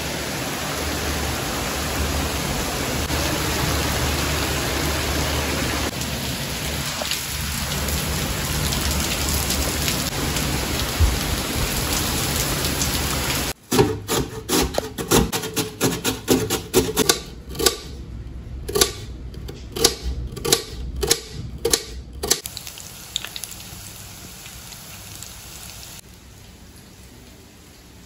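Heavy rain falling steadily. About halfway through it cuts off sharply, and a potato is rubbed quickly back and forth across the slicing blade of a stainless-steel box grater, cutting thin slices for potato bajji in rapid repeated strokes that fade out a few seconds before the end.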